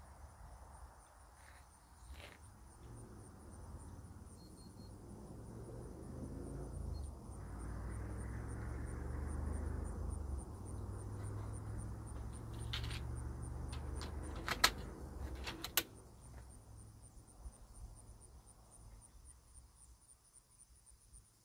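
A vehicle's low engine rumble swells over several seconds and fades again, over a steady pulsing buzz of insects. Near the middle come a few sharp clicks, one much louder snap among them.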